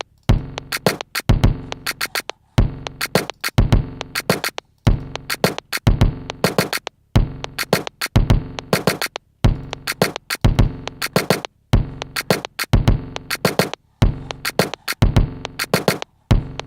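A one-bar drum loop programmed from found-sound samples (a kick drum, a click, a shaker and snares) repeating about every two and a quarter seconds, some seven times over, then stopping.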